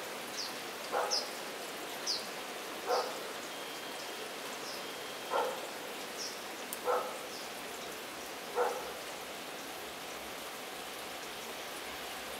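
Steady hiss of heavy rain, with a short sound every one to two seconds and faint high, short falling chirps over it.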